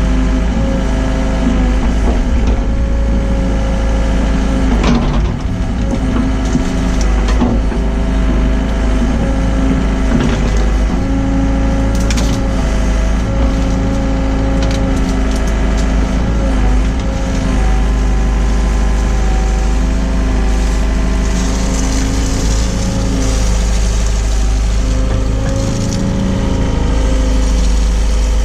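Hyundai excavator's diesel engine running steadily under hydraulic load, its pitch dipping and recovering as the arm works. Scattered sharp cracks and knocks ring out over the engine, several around the middle.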